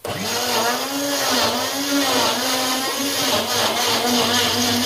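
Moulinex electric blender switched on and running at full speed, grinding fresh coriander, ginger, onion and green chillies with a little water into a wet green masala paste. It starts abruptly, and its motor pitch wavers as the load churns, steadying near the end.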